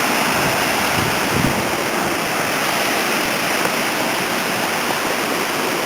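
Steady rushing of a waterfall running high with rainwater.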